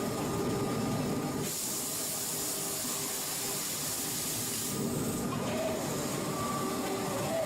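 Factory machinery running with a steady hum, and a loud hiss of released pressure lasting about three seconds, starting about one and a half seconds in.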